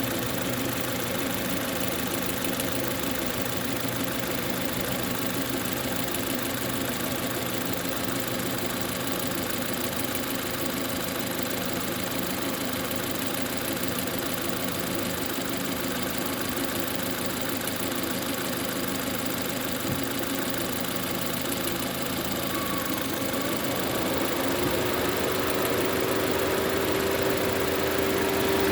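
Lada Granta's 8-valve VAZ-11182 engine idling with a regular knock from the top of the valve cover around the third cylinder, a knock that shows only once the engine is warmed to 60–70 °C. About three-quarters of the way through a steady hum joins in and the sound grows a little louder.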